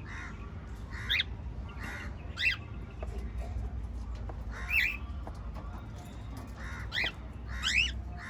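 Small pet parrots calling in short, upward-gliding chirps, about six in all, spaced a second or more apart with two close together near the end, over a steady low hum.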